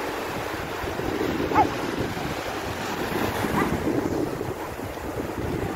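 Sea surf washing and foaming up a sandy beach, with wind buffeting the microphone. A couple of short high cries cut through, the loudest about a second and a half in.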